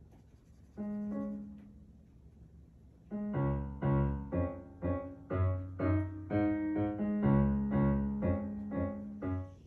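Piano being played: a single chord about a second in, then from about three seconds in a run of melody notes, roughly two a second, over held bass notes.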